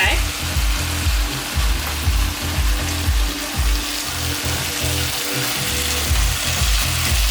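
Rice noodles and vegetables sizzling as they are stir-fried in a hot pan. Dance music plays underneath, with a steady bass beat of about two thumps a second.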